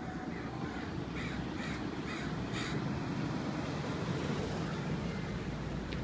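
A crow cawing, about five quick caws beginning about a second in, over a steady low background rumble.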